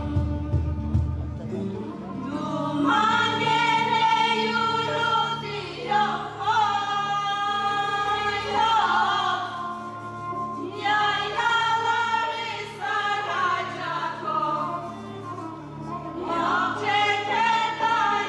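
Women's voices singing a Turkish folk song in long phrases with short breaks between them, over a steady low instrumental accompaniment.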